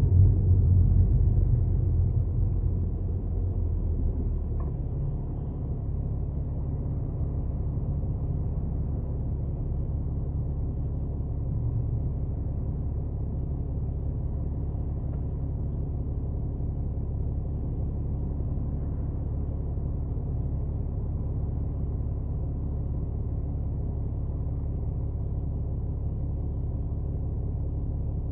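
Low, steady droning rumble with a hum from an Audi A6 4G TDI quattro on the move, louder for the first few seconds and then even. The owner puts this strange noise down to a defective wheel bearing.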